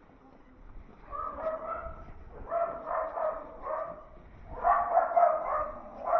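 A dog barking repeatedly in short bursts, starting about a second in and getting louder toward the end.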